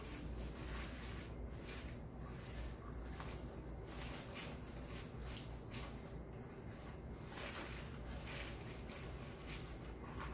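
Faint, irregular rustling and crinkling of deco mesh, wired ribbon and glittery picks being handled and tucked into a swag, over a low steady hum.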